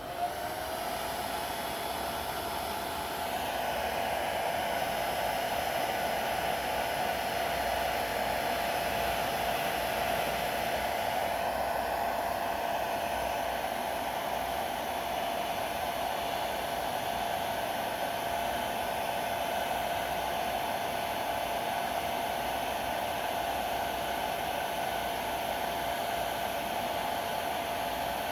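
Handheld hair dryer running steadily: a rush of air with a steady whine under it. It is warming a freshly applied rubber grip wrap.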